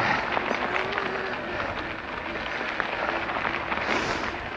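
Specialized Turbo Levo e-mountain bike climbing a gravel track: tyres crunching and ticking over loose stones, the bike rattling, and a faint steady whine from its mid-drive motor under load that comes and goes.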